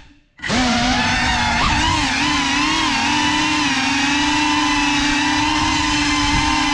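FPV drone's motors and propellers buzzing steadily, the pitch wavering up and down as the throttle changes. The sound drops out for about half a second at the very start, then comes back.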